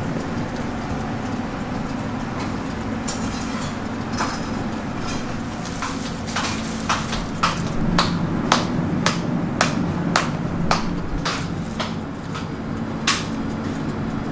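Sharp clicks and taps of kitchen utensils on metal and plastic, about two a second, starting a few seconds in and stopping near the end, over a steady low hum. They come as dabeli buns are buttered and laid on a flat griddle.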